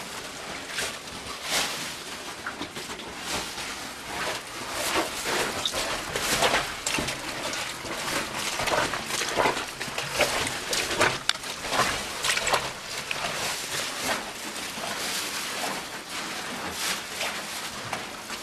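Irregular scuffing, scraping and rustling of people clambering through a narrow cave passage, clothing and hands brushing against the rock.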